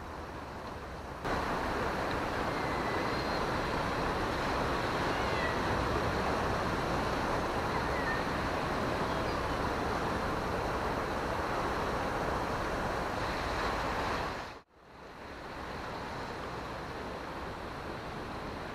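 Sea surf washing against a rocky shore, mixed with wind on the microphone: a steady rushing noise that gets louder about a second in, cuts out briefly about three-quarters of the way through, and returns quieter.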